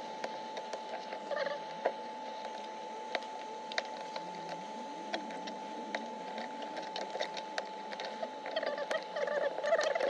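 Hot air gun blowing with a steady whine while the cracked back glass of an iPhone 11 is chipped and scraped off, giving scattered sharp clicks and ticks of breaking glass. A run of short, wavering squeaks comes near the end.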